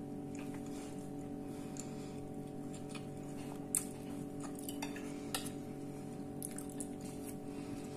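Metal fork clicking and scraping against a plate a few times, the sharpest click a little under four seconds in, over a steady low hum.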